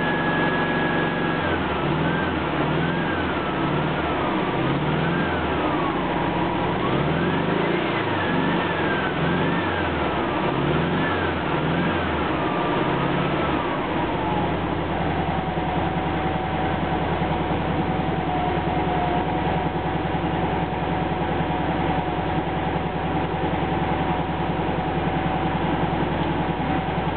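Air-cooled 30 PS flat-four engine of a 1956 Volkswagen Oval Beetle, revved again and again by hand at the carburettor, its pitch rising and falling about once a second. About halfway through it settles into a steady idle. The engine is running again after decades of storage.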